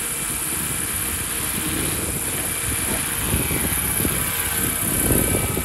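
Radio-controlled scale Bell 412 helicopter running with its rotors at flying speed, a steady high whine over the rotor noise. From about three seconds in, as it lifts off the pad into a hover, a gusty low rumble grows louder and peaks near the end.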